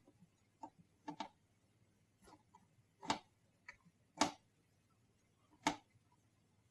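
Irregular light clicks and taps, about seven, spaced unevenly with the loudest three past the halfway point: the stock CPU cooler of a Dell desktop being unscrewed and worked loose from the motherboard.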